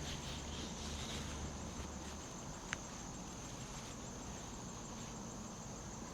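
Steady high-pitched insect chorus, with a faint low rumble in the first two seconds and a single small click near the middle.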